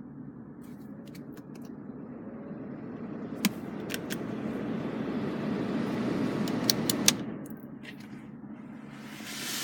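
Air-conditioning blower fan of a 1991 Jaguar XJ Sovereign, its airflow rushing louder as the fan is turned up and falling back after several seconds. A few sharp switch clicks come while it runs, and there is a short hiss near the end.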